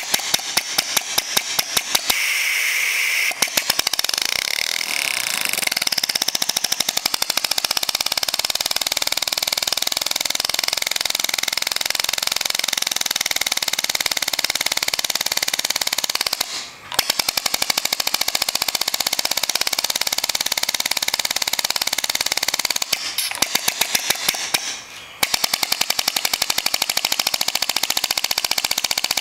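Small single-cylinder compressed-air model engine with a cam-driven slave valve running fast, a rapid even stream of air exhaust puffs and valve clicks. It slows and stops briefly twice, about 17 s and about 25 s in, and each time picks up speed again. A short hiss of air comes near the start.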